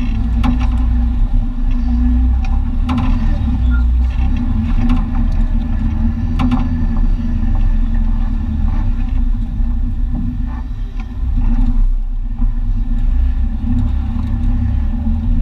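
Jeep Comanche's engine running steadily under load as the truck crawls along an off-road trail, heard from inside the cab, with a low drone. Scattered sharp knocks and rattles from the truck jolting over the rough ground.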